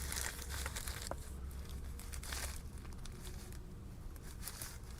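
Rummaging through a container of small electronic parts: plastic bags crinkling and rustling, with scattered small clicks as parts are handled, over a steady low hum.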